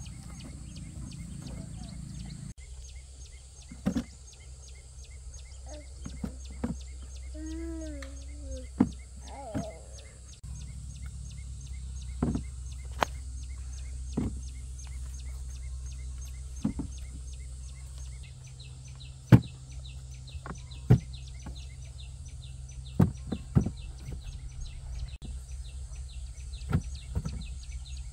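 Scattered sharp knocks and snaps of pumpkins being picked and set down in a field, over a steady low hum. A short clucking call comes about eight seconds in.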